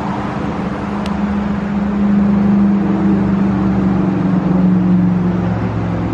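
A motor vehicle's engine running close by: a steady low hum that grows louder about two seconds in and sinks a little in pitch near the end.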